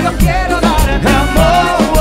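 Live Latin band music without lead vocal: congas and drum kit keep a steady, repeating beat under held melody lines.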